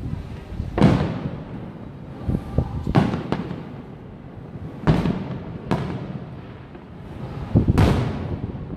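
Aerial fireworks shells bursting in a string of sharp booms, each followed by a short rumbling echo. About six loud bangs come a second or two apart, with smaller pops between them.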